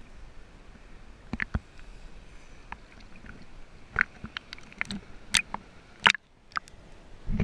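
Small sea-surface ripples splashing and lapping against a waterproof action camera held at the waterline, heard as a scatter of sharp clicks and little slaps, busiest in the second half. The sound drops away briefly about six seconds in.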